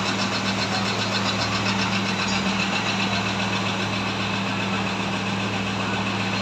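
Engine idling steadily, a steady low hum with a rougher haze over it, which stops suddenly at the end.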